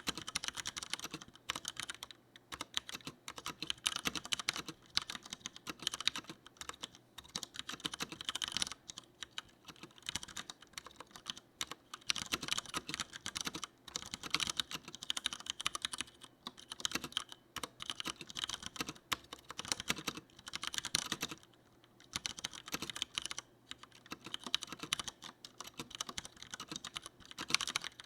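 Typing on a Leopold FC900R mechanical keyboard with tactile Cherry MX Brown switches: rapid, continuous keystroke clicks in runs of several seconds, broken by two short pauses.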